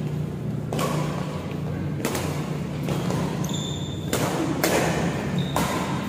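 Badminton rackets striking the shuttlecock during a doubles rally: a series of sharp hits roughly a second apart, echoing in a large hall, over a steady low hum.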